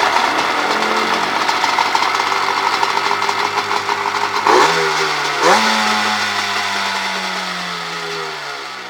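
1999 Polaris SLH 700 jet ski's 700 cc two-stroke twin running just after starting, blipped twice about four and a half and five and a half seconds in, then slowly dropping in pitch and fading near the end. It runs cleanly: the engine starts right up and checks out fine.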